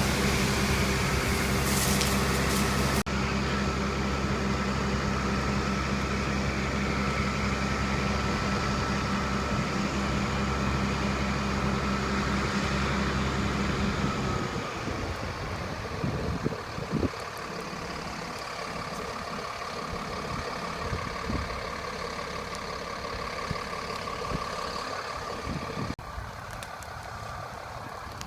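A vehicle engine running steadily at an even speed, which stops about halfway through; after it, quieter background sound with a few knocks.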